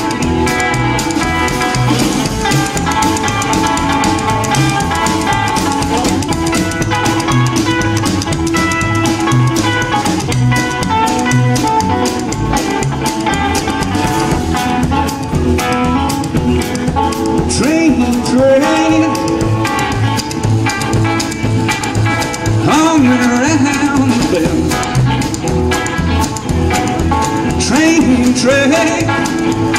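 Rockabilly band playing an instrumental break: drums and a bass keeping a steady beat, with electric guitar lines that bend in pitch in the second half and no lead vocal.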